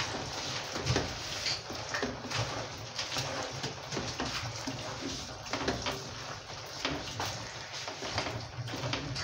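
A wooden spoon stirring and turning a large pot of chopped raw leafy greens (cocoyam, dandelion, spinach and bitter leaves): the leaves rustle, and the spoon scrapes and knocks irregularly against the pot.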